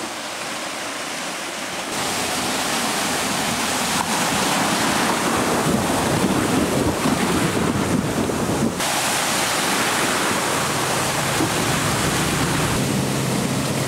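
Water splashing and surging as a Range Rover Sport drives through a flooded, muddy track, its wheels churning through the water. Steady music tones come in faintly near the end.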